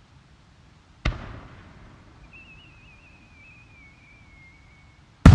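Aerial firework shell: a sharp launch thump from the mortar about a second in, then a thin, wavering whistle slowly falling in pitch as the shell climbs, and a loud bang of the shell bursting near the end.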